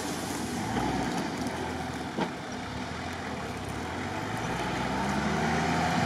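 Off-road 4x4's engine running at low speed, its note rising and getting louder over the last couple of seconds. A single short knock about two seconds in.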